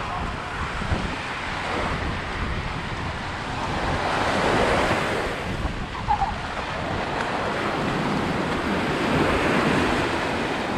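Small ocean waves breaking and washing up the sand at the shoreline, swelling louder about four seconds in and again near the end, with wind buffeting the microphone as a low rumble.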